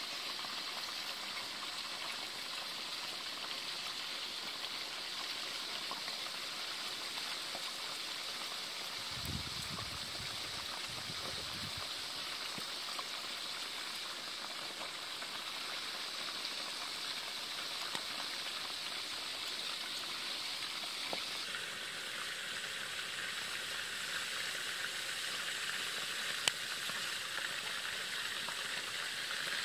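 Chicken drumsticks frying in a pan of hot oil, a steady sizzle whose tone shifts lower about two-thirds of the way through. A short low rumble comes about a third of the way in, and a single sharp click near the end.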